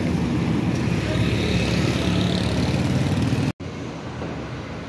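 A diesel tractor engine running steadily. It cuts off abruptly a little past three seconds, and a quieter, steady background noise follows.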